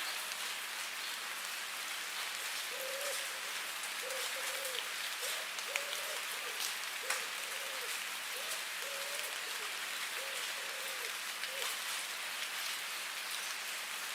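Steady rain falling on a surface: a constant hiss with many separate drop ticks. Through the middle a run of about ten short, low, slightly arching call notes sounds faintly beneath the rain.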